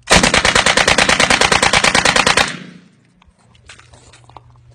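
Uzi-style submachine gun firing one long fully automatic burst of about two and a half seconds, rapid evenly spaced shots, with a short echo as it stops.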